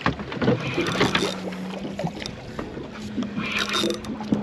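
Boat's outboard motor idling with a steady low hum, under wind and water noise, with scattered clicks and knocks of gear handling.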